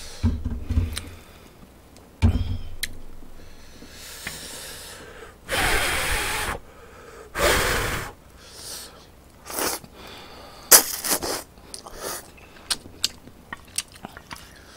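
A person slurping instant ramen noodles, with two long, loud slurps about halfway through, between quieter chewing and scattered light clicks and taps of chopsticks on the metal pot lid.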